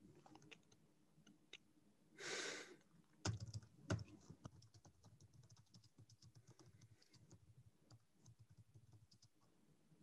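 Faint typing on a computer keyboard: scattered key clicks, with two louder knocks a little after three and four seconds in and a short hiss about two seconds in.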